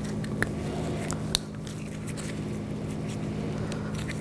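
Small plastic clicks and crackles as a new plastic cover is pressed and clipped onto a BMW X5 door handle's lock cylinder; the sharpest snap comes about a second and a half in. A steady low hum runs underneath.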